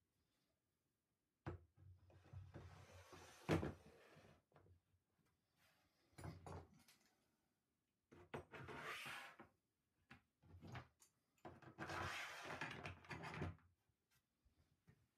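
Faint workbench handling noises: a wooden block is set down with a sharp knock, and metal bar clamps are slid along the bench's metal tracks and set, in several short scraping, rattling spells.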